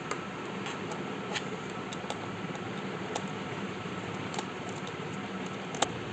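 Scattered light clicks and taps of a laptop being worked on by hand, over a steady background hiss; the sharpest click comes near the end.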